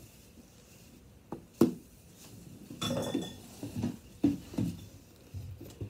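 Unpacking a figure's parts from a cardboard box: a string of sharp knocks and clinks, the loudest about a second and a half in, then a busier cluster of clatter and rustling.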